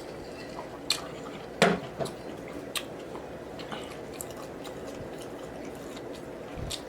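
Close-miked eating sounds: wet smacks and clicks of chewing food, a few sharp ones in the first three seconds, the loudest about a second and a half in, over a steady low background hum.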